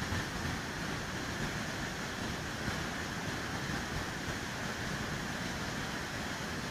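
Fast muddy floodwater of a flash flood rushing in a torrent: a steady, even rushing noise with no let-up.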